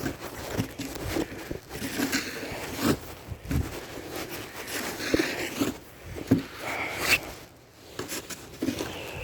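Snow shovel scraping and pushing through fresh snow, with crunching footsteps, in irregular strokes.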